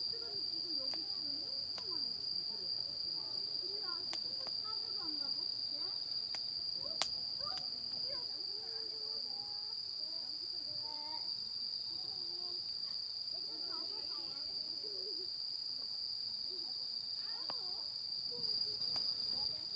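Insects chirring in one unbroken high-pitched drone, with faint distant voices underneath and a single sharp click about seven seconds in.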